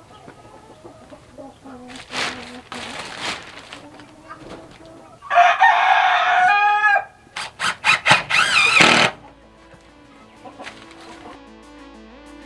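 Chickens clucking, then a rooster crows loudly for about a second and a half, its call dropping in pitch at the end, followed by a few short squawks.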